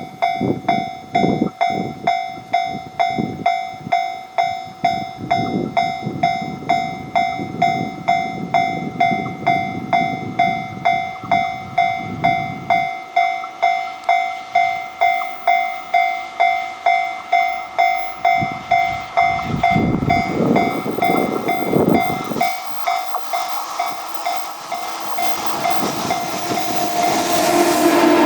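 Japanese level-crossing warning bell ringing over and over, just under two strikes a second. Near the end the approaching electric-locomotive-hauled freight train grows louder beneath it.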